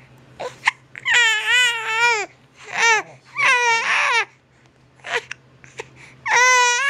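Baby crying in four bouts, each a wavering, strained cry, the longest about a second in, with short sharp catches of breath in the gaps between them.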